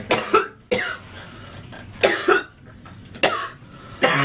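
Young women coughing hard: a run of harsh, sudden coughs in quick clusters, part of a coughing fit brought on by smoking that leaves the throat burning.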